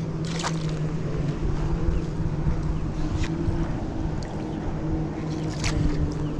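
A motor running at a steady hum, with wind rumbling on the microphone and a few sharp clicks.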